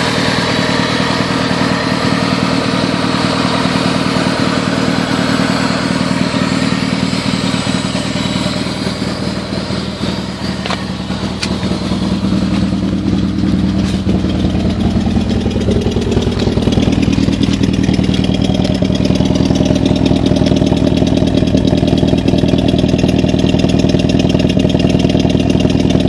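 Toyota Celica ST202's four-cylinder engine running with a misfire. It dips slightly about ten seconds in, then runs louder from about two-thirds of the way through.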